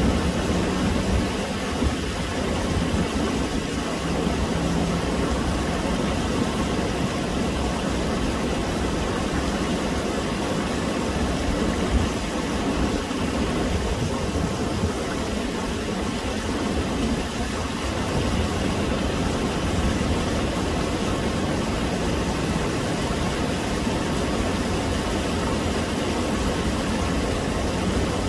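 Shallow stream rushing over rocks in small rapids: a steady, even rush with a low rumble underneath.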